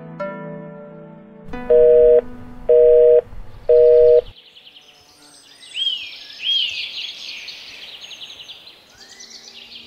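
Soft background music fades, then a phone line gives three loud beeps, each about half a second long and a second apart: the dropped-call tone of a line gone dead after an unanswered "hello". After that, birds chirp in short rising-and-falling calls.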